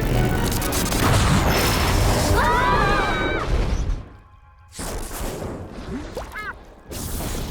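Cartoon action sound effects: a loud crashing blast with rumbling for several seconds, mixed with dramatic score, and a brief cry about three seconds in. After a short drop it goes on with quieter whooshing effects and a brief rising tone.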